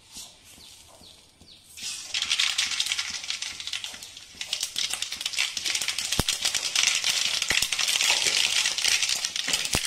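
Mustard seeds spluttering in hot coconut oil: a dense crackle of tiny pops that starts about two seconds in and keeps going, with a few sharper single pops.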